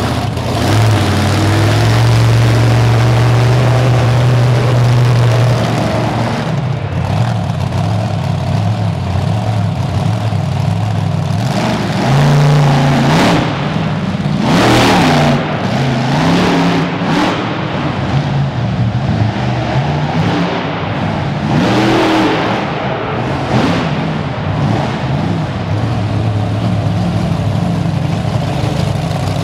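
Raminator monster truck engine running, revved up and down several times in the middle, with the pitch climbing and falling on each rev.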